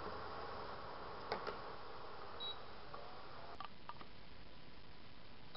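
Hot oil sizzling steadily in a kadhai as fried potato pieces are lifted out with a metal slotted spoon, with a few clinks of the spoon against the pan. A short high electronic beep sounds about two and a half seconds in.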